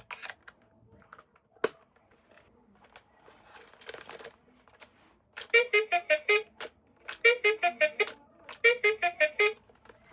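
A click, a soft rustle, then a battery-powered toy's electronic tune: three quick runs of short, bright notes, each about a second long.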